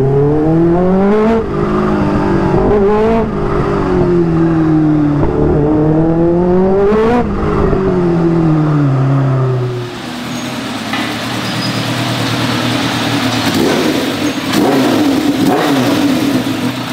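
Kawasaki Ninja H2's supercharged inline-four running through an aftermarket full-system exhaust at low riding speed, its revs rising and falling several times with sharp throttle blips. About ten seconds in the sound changes abruptly to a steadier, noisier running sound.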